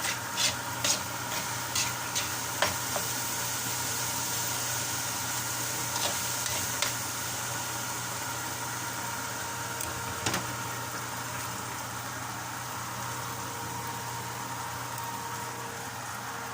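Pinakbet vegetables sizzling in a pan, with a utensil clicking against the pan several times in the first few seconds and a few more times later on.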